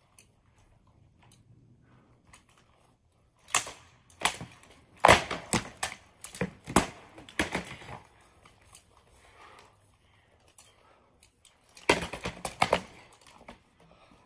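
Weapon blows striking wooden shields and armour in armoured sword-and-shield sparring: a flurry of sharp knocks and clacks from about three and a half to eight seconds in, then a second short flurry around twelve seconds.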